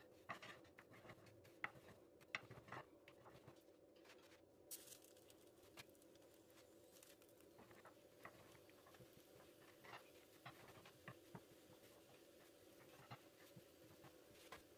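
Faint scattered ticks and crackles of a thin flatbread dough cooking in a dry nonstick frying pan, with a few sharper clicks in the first few seconds, over a faint steady hum.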